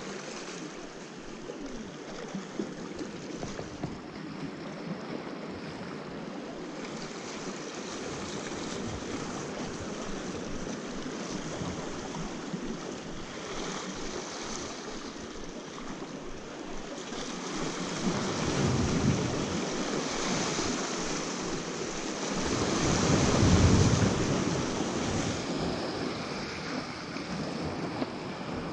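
Sea waves washing and breaking, a steady rush with two louder surges in the last third.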